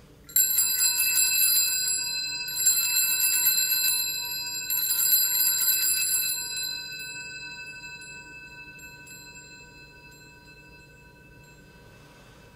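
Altar bells, a cluster of small hand bells, shaken in three rings about two seconds apart, their tone then dying away slowly over several seconds. This is the ringing at the elevation of the chalice during the consecration.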